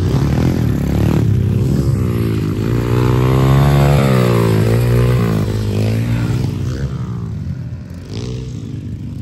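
Small pit bike engines revving on a dirt track, their pitch rising and falling over and over as the riders work the throttle through the turns and jumps.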